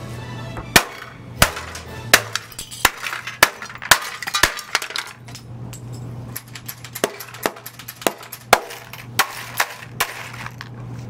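A hammer smashing wall clocks, cracking their glass faces and plastic cases, with shards clinking. The blows come in a rapid, uneven run, thickest around the middle.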